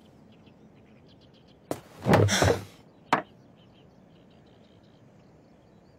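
A drinking glass handled and set down on a table: a light tap, a loud rushing noise lasting under a second, then a sharp knock of the glass on the tabletop. Faint high chirping goes on in the background.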